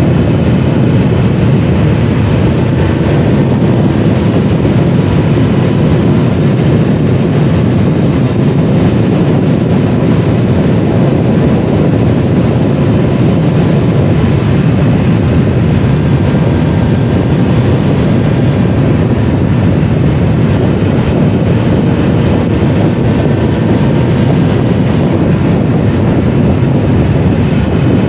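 Triumph Explorer 1200's three-cylinder engine running on the move, under a steady rush of wind noise on the microphone. The engine note shifts only slowly.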